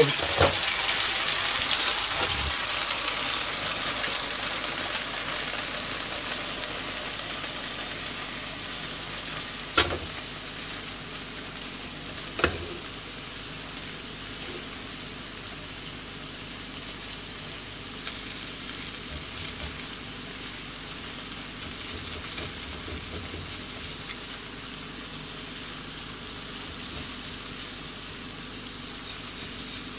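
Gyoza sizzling in a frying pan as the water boils off; the sizzle dies down over the first fifteen seconds after the heat is turned to low, then holds steady. Two sharp knocks come about ten and twelve seconds in.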